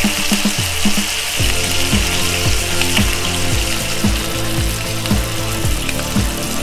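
Ostrich steaks sizzling in hot oil on a cast iron pot lid, a steady crackling hiss. Background music with a steady beat plays under it.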